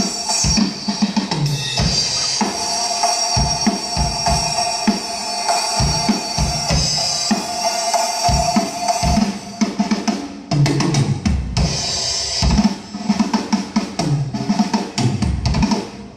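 A drum kit played loosely as a sound-check warm-up: kick drum, snare and cymbals in grooves and fills, with busier runs of low drum hits about two-thirds of the way through.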